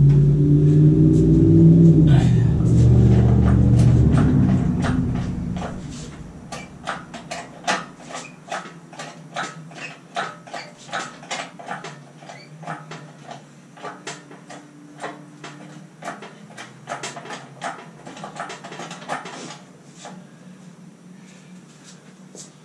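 Homemade steel gantry crane rolling across a concrete floor under a 4900-pound lathe, its casters giving a loud rumble with a wavering tone that fades out after about five seconds. After that, a long run of irregular sharp clicks and knocks.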